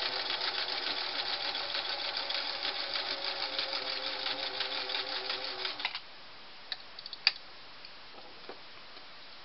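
Metal-geared Singer 347 sewing machine running steadily through a zigzag stitch, a fast even clatter over a motor hum, stopping abruptly about six seconds in. A few sharp clicks follow, the loudest about a second after it stops.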